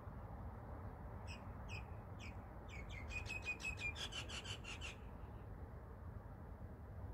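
A bird calling: a series of short high notes, slow at first and then quickening into a rapid run, which stops about five seconds in. A steady low background rumble continues underneath.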